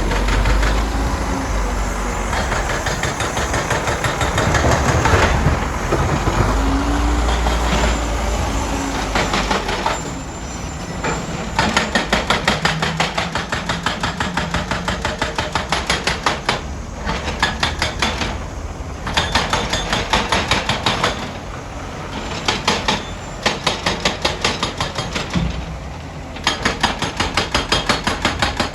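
Heavy earthmoving machinery working: a diesel engine runs with a steady low rumble, then rapid rhythmic metallic clanking comes in repeated bouts of a few seconds each, several strikes a second.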